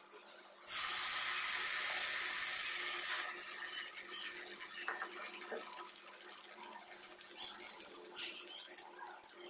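A hot dosa tawa sizzles loudly, starting sharply just under a second in and easing after about two and a half seconds. A quieter sizzle carries on, with faint scrapes, as dosa batter is poured and spread in circles with a ladle.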